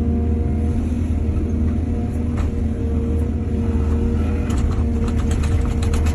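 Excavator's diesel engine running with a steady drone. From about four seconds in comes a quick run of clattering knocks.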